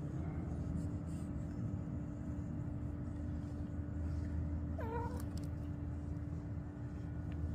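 A domestic cat meows once, a short call about five seconds in, over a steady low hum.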